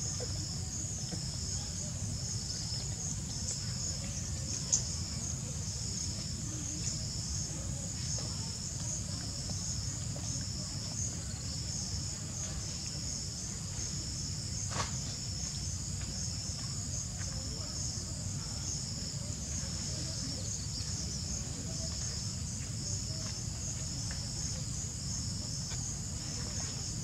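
Insects chirring in the surrounding vegetation: a high, steady drone with a pulsing note repeating about once a second, over a low steady rumble. Two sharp clicks stand out, one about 5 seconds in and one about halfway through.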